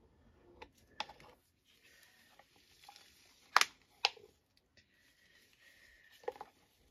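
A few sharp clicks and taps of a wooden stir stick and plastic mixing cup as the last resin is scraped out of the cup, with the loudest pair of knocks about three and a half seconds in.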